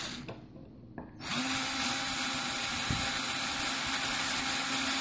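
Cordless drill spinning a rotary burr bit against the guide slug of a corkscrew wine opener, grinding out the hole so the auger fits through. The drill is briefly stopped at first, then starts again about a second in and runs steadily.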